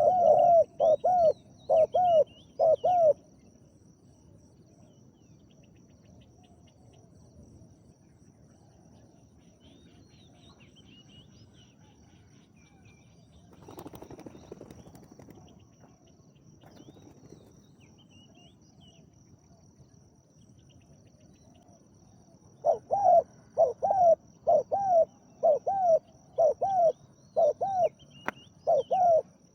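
Spotted dove cooing in a rhythmic series of deep notes, about two a second, stopping after about three seconds and starting again about 22 seconds in. In the long gap a steady high insect trill and faint small-bird chirps go on, with a brief rustle about halfway through.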